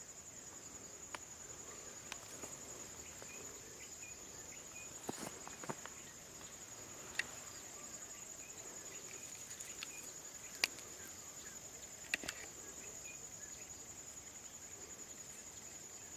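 Steady, high-pitched trilling of insects, unbroken throughout. A few sharp clicks sound over it, the loudest around the middle.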